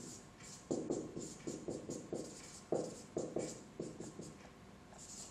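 Dry-erase marker squeaking and scratching across a whiteboard as capital letters are written, a quick run of short strokes with brief pauses between them.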